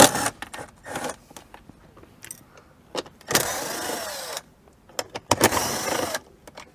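Small cordless power tool motor running in two bursts of about a second each, its pitch rising and falling, as it backs out center-console screws; sharp clicks and knocks of tools and trim in between.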